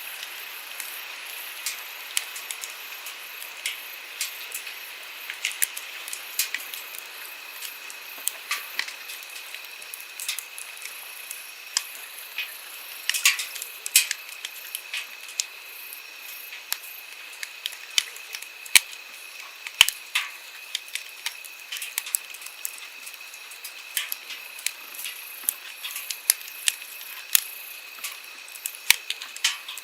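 Wood campfire crackling, with frequent irregular sharp pops and snaps, over the steady rush of a flowing stream.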